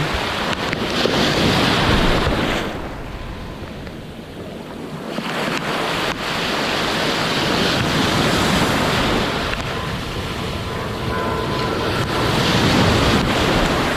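Ocean surf breaking on a beach with wind buffeting the microphone, the rushing noise swelling and easing as the waves come in, dipping briefly a few seconds in.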